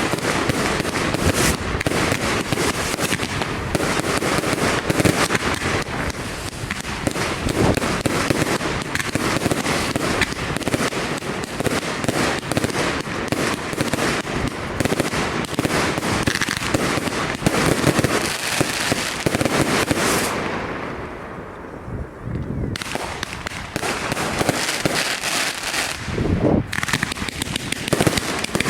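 Firework display: a dense, continuous barrage of bangs and crackling, easing off briefly about two-thirds of the way through before picking up again.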